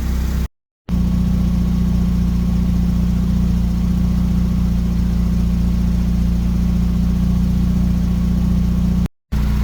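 Mazda RX-8's rotary engine idling steadily with the air-conditioning compressor engaged while the system is being filled with refrigerant. The sound cuts out briefly twice.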